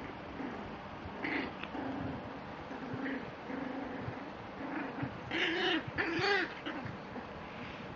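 Six-week-old puppies whining in a string of short, repeated cries, with two louder, longer whines near the end.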